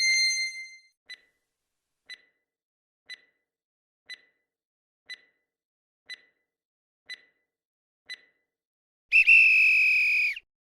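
Quiz countdown timer sound effect: eight faint ticks about a second apart, then a loud electronic buzzer tone lasting just over a second, signalling that time is up for the answer.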